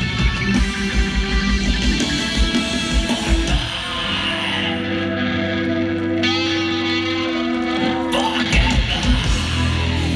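Live hardcore band playing loud distorted electric guitar with drums. The drums drop out about four seconds in, leaving held guitar chords with a bending note, and crash back in a little after eight seconds.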